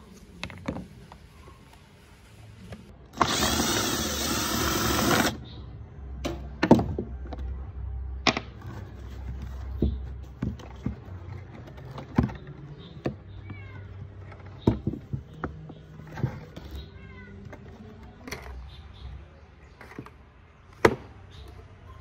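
Scattered clicks and knocks of metal and plastic wall-fan parts being handled and set down while the motor and housing are taken apart. A loud steady hiss lasts about two seconds near the start, and a few faint, wavering high calls come in the middle.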